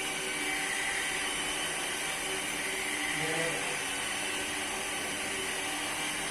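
Stanley SP 137 electric rotary car polisher running steadily while buffing a painted panel, an even motor whine with pad noise.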